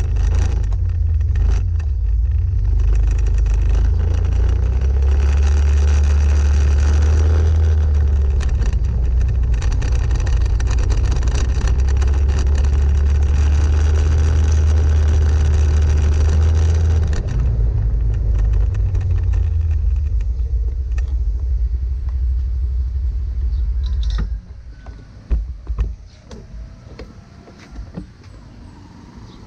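Wind buffeting the microphone during a ride, with a steady hiss of tyres on a wet road. The rumble drops away abruptly about 24 seconds in as the ride comes to a stop.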